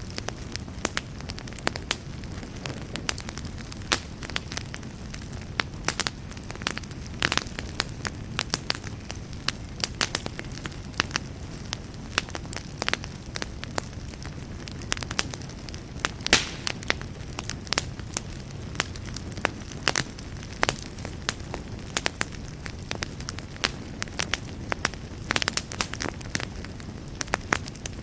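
Wood fire burning in a fireplace: a steady low rumble of flames under frequent irregular sharp crackles and pops.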